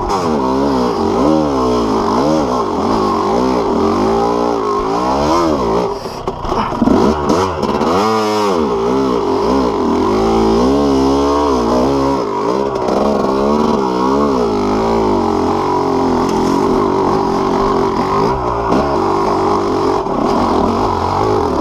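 Yamaha YZ250 two-stroke dirt bike engine being ridden over rocks, the throttle worked on and off so that the revs rise and fall over and over, about once a second. There is a brief drop in the revs about six seconds in.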